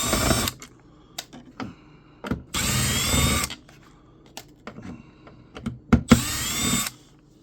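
Power drill/driver running in three short bursts of about a second each, backing out the screws that hold a flat-screen monitor's stand. Light clicks and knocks of handling come between the bursts.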